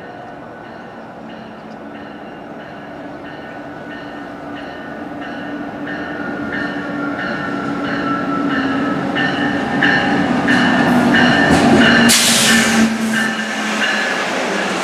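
GO Transit diesel commuter train approaching and then running past along the platform. Engine and wheel noise grows steadily louder, over a regular ticking of two or three a second. A sudden loud hiss comes about twelve seconds in as the train goes by.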